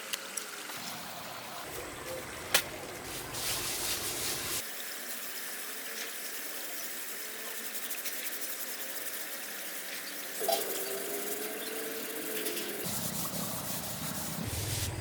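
Water trickling steadily, with a single sharp click about two and a half seconds in.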